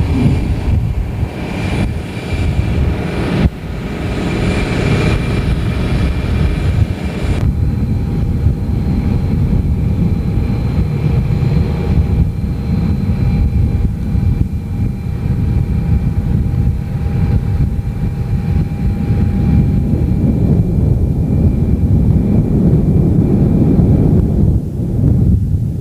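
Aircraft engines and rumble heard from inside the cabin as the plane rolls along the runway: a dense steady low rumble with a thin engine whine above it, and a higher hiss that cuts away about seven seconds in.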